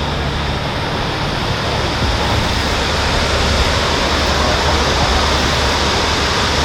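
Steady, loud rushing of flowing river water, an even noise without breaks.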